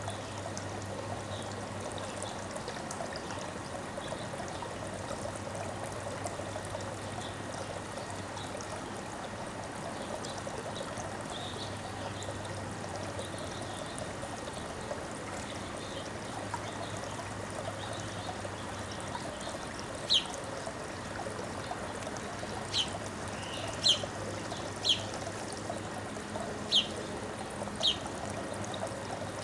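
Bird chirping: short, sharp, single chirps, about eight of them in the last ten seconds, over a steady trickling-water sound.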